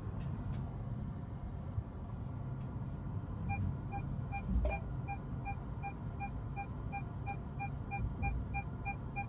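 Seat Tarraco's parking sensors beeping, a regular series of short pitched beeps about three a second starting about three and a half seconds in, warning of an obstacle close by while the car parks itself. Under them runs the low hum of the car's cabin, with a single soft knock just after the beeping begins.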